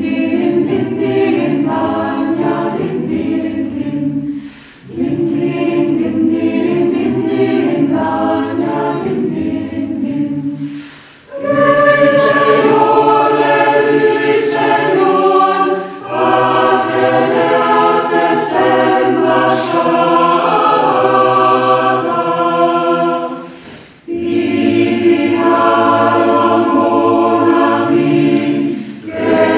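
Chamber choir singing unaccompanied in sustained phrases, with short breath pauses between them. The singing grows fuller and louder about a third of the way in.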